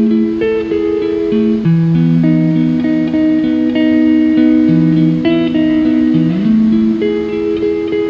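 Calm instrumental background music of plucked and strummed guitar, with held notes and a chord change every second or two.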